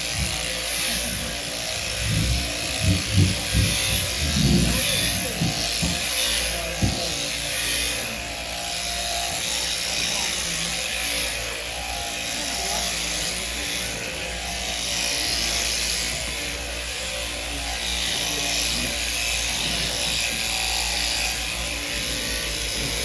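Electric sheep-shearing handpiece running steadily as it shears a lamb, a constant buzzing hum that cuts off suddenly near the end as the shearing finishes. A few low knocks come about two to four seconds in.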